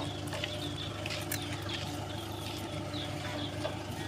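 Tractor engine running steadily at low speed, pulling a trolley, with small birds chirping over it.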